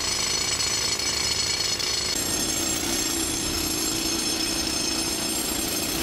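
Handheld pneumatic rock drill hammering a hole into a stone slab, a loud steady clatter. Its tone shifts slightly about two seconds in.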